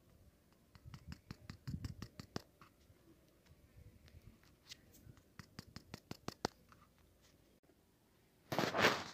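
Utensil stirring flour into a wet dough in a plastic bowl: a run of quick clicks and scrapes against the bowl, then a brief louder rustle near the end.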